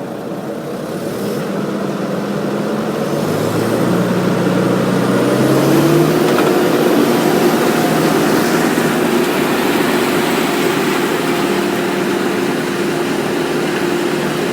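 Rotochopper CP-118 horizontal grinder's diesel engine throttling up from idle, its pitch rising and the noise growing over the first several seconds as the machine comes up to operating speed. It then runs steadily at full speed.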